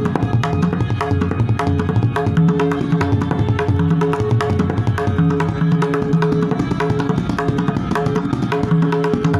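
Tabla (dayan and bayan) playing a traditional Farrukhabad-style kayda in teentaal, a fast, unbroken stream of strokes with no pause.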